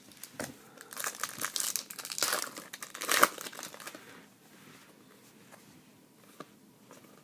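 A Panini Contenders hockey card pack wrapper being torn open and crinkled, a dense crackling from about a second in until about four seconds in, loudest near the end of it. After that only faint rustles of the cards being handled.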